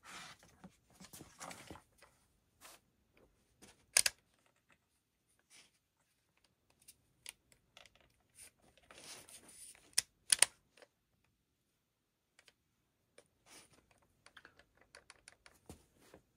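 Scattered light clicks and rustles of objects handled on a workbench, with a sharp knock about four seconds in and two more just after ten seconds.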